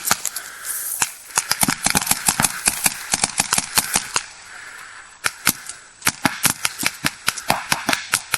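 Paintball markers firing in rapid, uneven volleys of sharp pops, several shots a second, with a short lull about halfway through before the firing picks up again.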